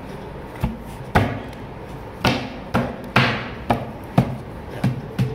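About nine sharp knocks on the panels of a flat-pack IKEA Songesand side table, at uneven intervals, as the upright panel is knocked down onto the base panel to seat its dowels and connector screws in the pre-drilled holes.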